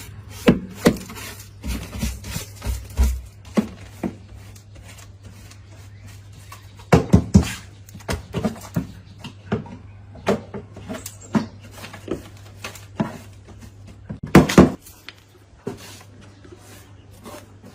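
Irregular knocks and clatter, as of hard objects being handled and set down, with a tight cluster of strikes about seven seconds in and again near the end, over a steady low hum.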